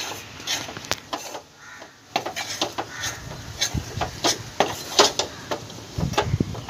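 Spatula scraping and knocking against a metal kadhai while stirring a thick, crumbly milk-powder and sugar-syrup mixture, in short irregular strokes.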